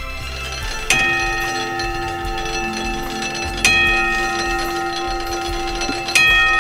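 Bell of a home-built barn clock's striking train, its gears salvaged from old farm machinery, struck by the clock's hammer three times about two and a half seconds apart. Each stroke rings on until the next, as the clock strikes the hour or half hour.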